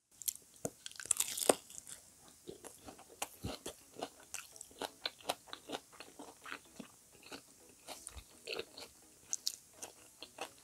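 Close-miked crunching and chewing of a crispy fried squash okoy fritter: rapid dry crackles, loudest in the first two seconds, then steady crunchy chewing.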